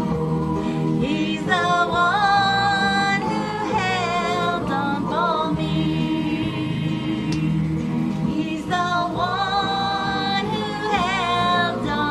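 Gospel song playing: a singing voice holds long notes with vibrato over a steady backing accompaniment.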